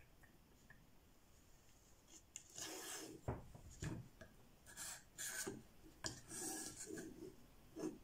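Sharpening stone in the guided rod holder of a 3D-printed Edge Pro-style knife sharpener, rasping across a clamped knife's edge. Several strokes start about two and a half seconds in, with a couple of sharp knocks among them.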